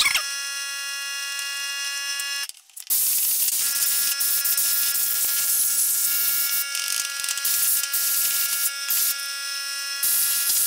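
Compressed-air blow gun hissing as it blows dust out of a battery charger's circuit boards and fans, over a steady buzzing whine. The sound cuts out briefly about two and a half seconds in, then the hiss resumes.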